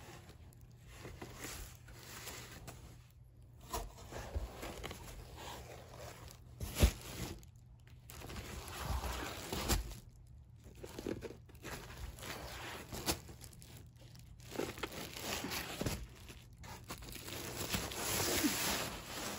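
Fabric bolts being handled in a cardboard box lined with bubble wrap: irregular rustling and crinkling, with a few light knocks, one sharper about a third of the way in.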